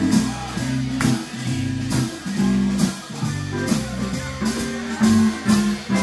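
Live blues band playing: strummed guitar chords over a moving bass line, with sharp accents scattered through it.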